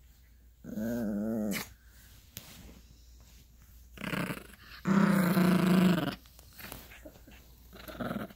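Yorkshire terrier puppy play-growling while tugging a plush toy: a short wavering growl about a second in, then a longer, louder growl around five to six seconds in.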